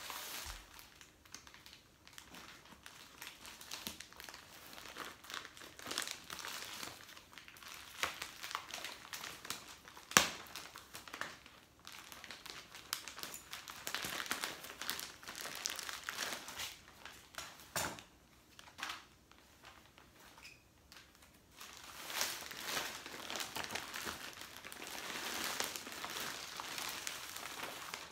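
Thin plastic wrapping crinkling and crackling as a vacuum-sealed bag is cut open with scissors and pulled off a rolled shredded-memory-foam pillow. Irregular rustling with a few sharp snaps, the loudest about ten seconds in, and denser crinkling near the end.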